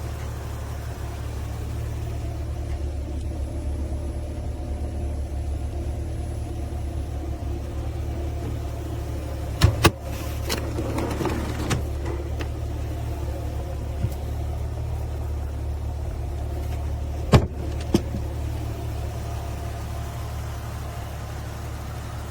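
Steady low mechanical rumble with a few sharp clicks, a pair about ten seconds in and another pair a few seconds before the end.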